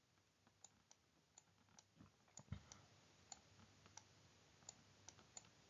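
Faint, irregular ticks and taps of a stylus writing on a tablet screen, about a dozen sharp clicks in all, with a duller knock about two and a half seconds in. Near silence otherwise.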